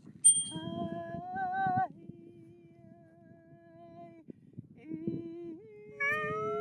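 Wordless humming: a voice holds long notes one after another with short breaks between them, the last note louder and steadier. A short, thin, high whistling tone sounds at the very start.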